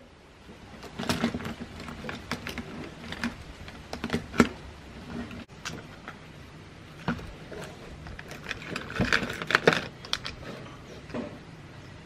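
Pens, brushes and scissors clicking and rattling in a plastic pen stand as it is handled and set down on a desk, in scattered taps with a louder knock about four seconds in and a busier run of rattles around nine seconds.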